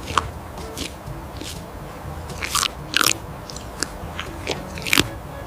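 Irregular crisp crunches and clicks of mud being cleaned off a plastic toy animal, a few louder snaps among many small ones.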